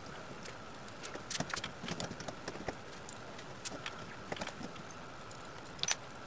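Scattered small metallic clicks and ticks of J-clip pliers crimping J-clips onto galvanized cage wire and of loose clips being handled, with the sharpest, a quick pair of clicks, near the end.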